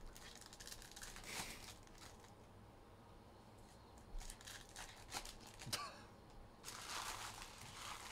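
Trading-card pack wrappers being torn open and crinkled, with light rustling and handling of cards, in irregular bursts.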